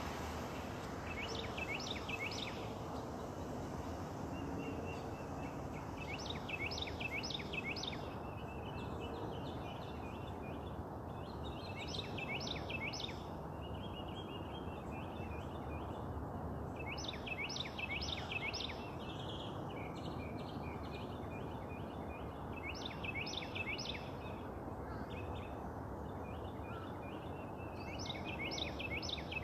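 A songbird repeating a short phrase of four or five quick downslurred whistled notes about every five seconds, with softer chattering notes from another bird between the phrases. Under the birds runs a steady background hiss and hum.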